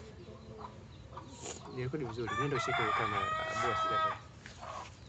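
A rooster crowing once: one long call of about two seconds, starting about two seconds in and breaking off sharply.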